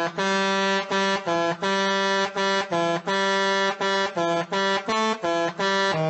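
Musical bus horn playing a melody of separate pitched notes with short gaps between them, about two or three notes a second, slowed down as an edited variation of the horn sound.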